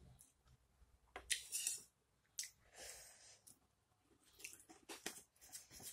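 Faint chewing and mouth sounds of someone eating, with scattered short clicks of a fork and knife against a plate as the food is cut.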